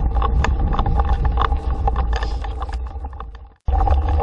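Dog scooter rolling fast over a frozen road, a steady rumbling and humming ride noise with rattling clicks, wind buffeting the microphone. The noise fades out about three and a half seconds in, then cuts straight back in.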